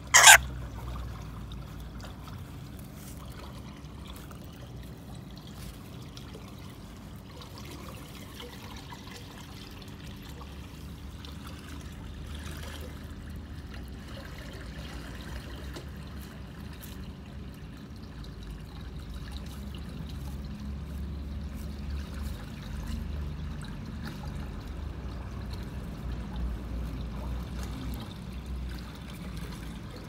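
Rainbow lorikeet giving one brief shrill screech right at the start, followed by a low steady background hiss and rumble with scattered faint clicks.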